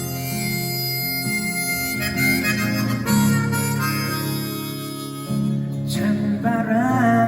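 Live harmonica playing a slow melody of held notes over orchestral accompaniment.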